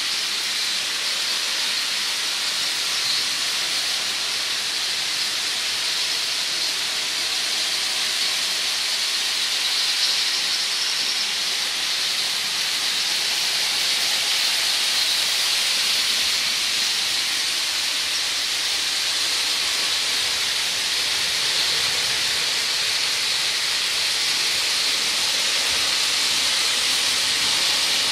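Several motorized toy trains running at once on plastic track: a steady, high whirring hiss of small motors and wheels that holds level throughout.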